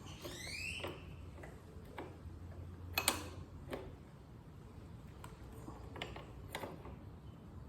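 Wrenches clicking and tapping on the metal fittings while a tight, fine-threaded rear brake switch is turned loose. There is a short rising squeak near the start, then scattered sharp clicks, the loudest about three seconds in.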